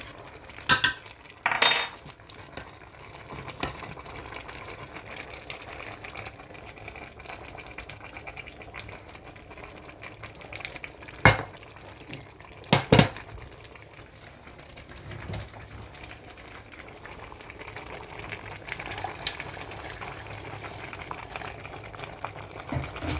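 A pot of ogbono soup simmering on the hob while it is stirred with a wooden spoon. Sharp knocks of pot and utensils against the pot rim come twice near the start and twice more about halfway through.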